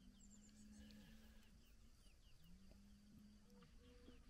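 Near silence outdoors, with faint distant bird chirps, short falling notes repeated several times a second, and a faint low hum that comes and goes.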